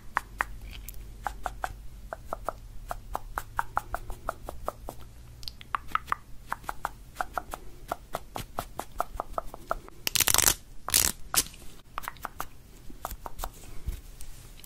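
Teeth of a plastic comb clicking in a quick, uneven run of small ticks, several a second, with two louder scratchy rushes about ten seconds in.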